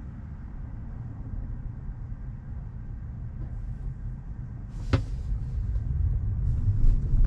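Road and tyre rumble inside the cabin of a Tesla Model 3 driving on city streets, growing louder over the last couple of seconds, with one sharp click about five seconds in.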